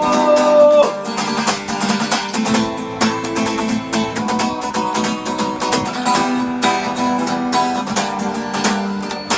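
Acoustic guitar strummed steadily through an instrumental break in a sung song. A held sung note ends about a second in.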